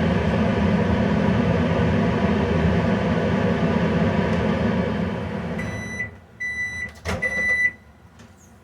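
Microwave oven running with a steady hum for about a 10-second heating burst. It stops about five and a half seconds in, and three short beeps follow to signal the end of the cycle, with a sharp click between the second and third beep.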